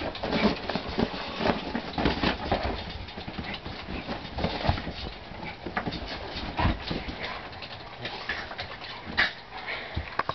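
An Italian greyhound and a Rottweiler play-fighting on a couch: dog vocal sounds mixed with repeated quick thumps and scuffles of paws and bodies.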